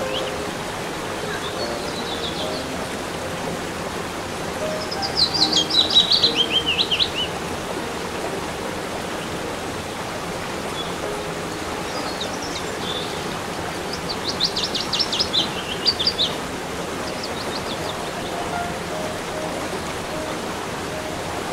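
A songbird singing short, fast trilled phrases, loudest about five seconds in and again about fifteen seconds in, over a steady rush of flowing water.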